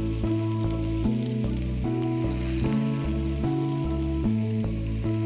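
Fish pieces shallow-frying in hot oil in a pan, sizzling steadily, with background music and a bass line underneath.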